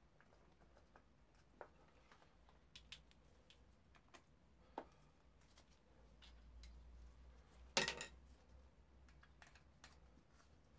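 Faint, scattered small clicks and taps of hand tools and parts being handled at a motorcycle engine's intake ports, with one louder clack a little before eight seconds in.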